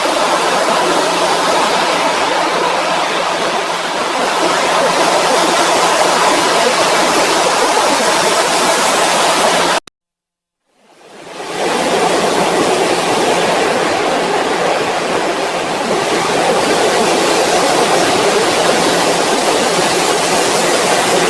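Loud rushing noise like static or a waterfall, with a steady low hum underneath: reversed, effects-processed TV ident audio. It comes twice, each time swelling in over about a second and cutting off abruptly after about ten seconds.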